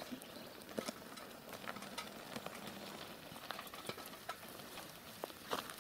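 Bicycle rolling over a gravel and dirt track: a faint, steady crackle of tyres on grit with many small irregular clicks and rattles from the bike.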